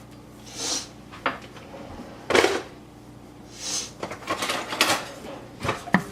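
Fresh curry leaves being stirred in a dry pan: swishes of leaves pushed across the pan, the loudest one about two and a half seconds in, with scattered clicks and taps of the utensil against the pan, most of them near the end.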